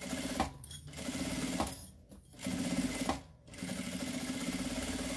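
Industrial lockstitch sewing machine stitching a seam through quilted fabric and lining in three runs, stopping briefly twice as the work is turned around a curved edge.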